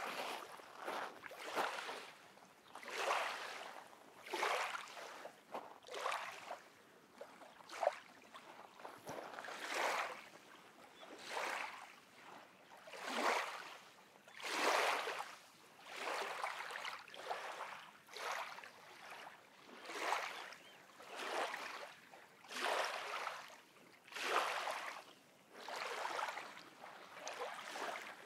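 Small lake waves lapping and washing onto a black volcanic sand shore, one soft wash about every one and a half seconds.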